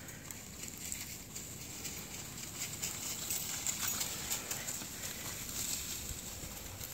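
Several dogs running over dry fallen leaves: quick, irregular crunching and rustling of paws in the leaf litter, getting louder as the pack comes closer.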